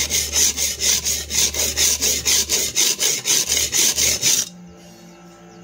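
Steel cleaver blade scraping back and forth on the 100-grit side of a very coarse resin-bonded diamond sharpening stone, in quick even strokes about four a second, grinding a new bevel on a dull edge. The strokes stop about four and a half seconds in.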